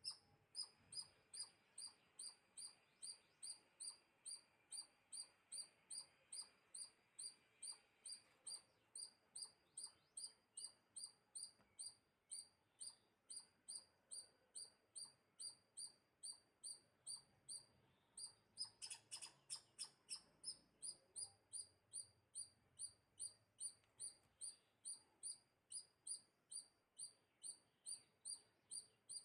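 A small animal's high-pitched chirp call, repeated very steadily about two and a half times a second, with a brief burst of faster, louder chirping about two-thirds of the way through.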